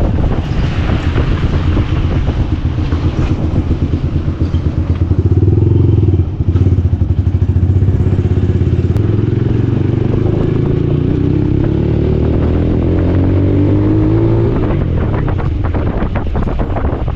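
Yamaha YBR 125's single-cylinder four-stroke engine running loud and bassy through an aftermarket Akrapovic slip-on exhaust with its baffle (dB killer) removed, on the move. There is a brief break in the sound about six seconds in; then the revs climb steadily for several seconds and fall away near the end.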